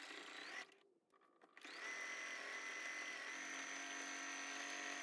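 Faint electric sewing machine stitching through towel fabric: a short run, a pause of about a second, then steady stitching from about a second and a half in, its motor whine rising as it gets up to speed and then holding steady.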